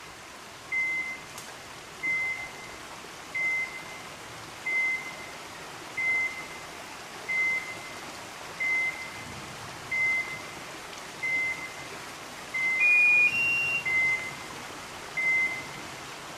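Electronic beeper collar on a hunting dog: a single high beep about every second and a half. About two-thirds of the way through, a quick run of three beeps, each higher than the last, breaks the pattern.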